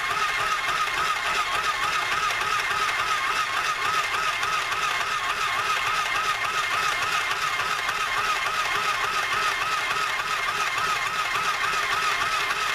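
Small battery-powered portable sewing machine running steadily, stitching through paper: a buzzing motor whine that wavers in a regular rhythm, about four times a second, with the needle strokes.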